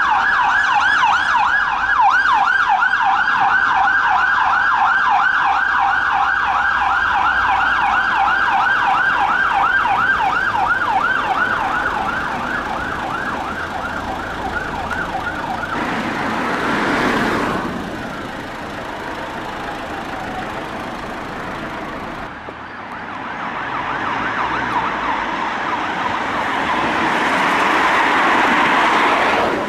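An emergency vehicle's siren on a fast yelp, sweeping up and down about four times a second, fading away about halfway through. Then vehicles pass with a rush of road noise, swelling twice.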